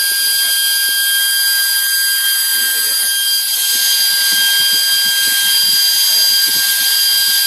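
Delta PFR0812XHE brushless DC fan running at full speed on 25.2 V, a fully charged six-cell lithium-polymer voltage and about twice its 12 V rating: a loud, steady rush of air with a high whine.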